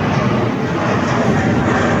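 Jet airliner engines running: a loud, steady rush of noise with a faint high whine over it.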